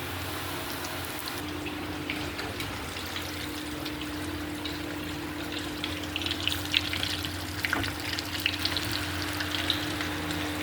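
Chicken pakoda deep-frying in hot oil: a steady sizzle with scattered crackling pops that grow more frequent in the second half, over a constant low hum.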